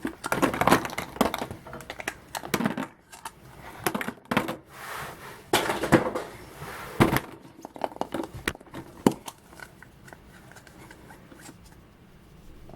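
Foil wrapper of a chocolate surprise egg crinkling and tearing as it is unwrapped, in irregular bursts of rustling and crackling that die down near the end.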